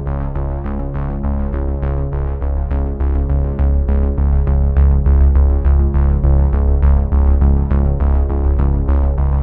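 Background music with held chords over a heavy bass and a steady beat.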